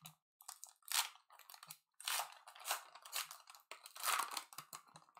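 A foil trading-card pack wrapper being torn open and crinkled by hand, in a string of short, irregular crinkling rustles.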